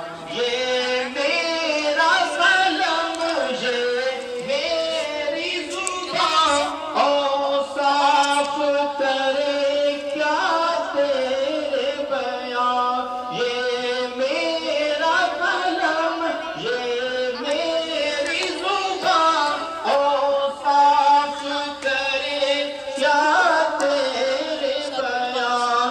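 Naat vocals: layered singing voices over a steady held drone tone.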